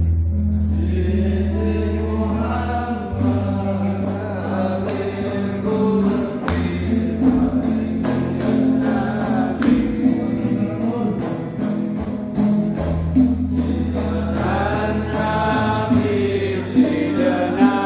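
Devotional song performed live: a chorus of voices singing over sustained bass notes that change every few seconds, with a steady high percussion beat.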